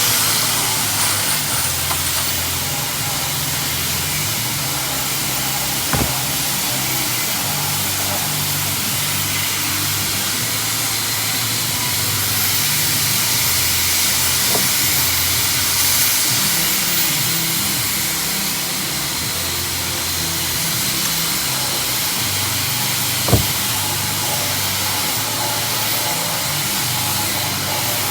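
A power tool running continuously with a steady hiss and a low, wavering motor hum, with two short sharp knocks partway through.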